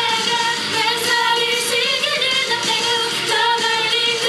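Pop idol song playing loud and steady, with female singing over the backing track.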